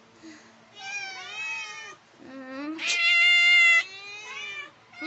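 A domestic cat meowing in a run of calls that bend up and down, the loudest a long level meow about three seconds in.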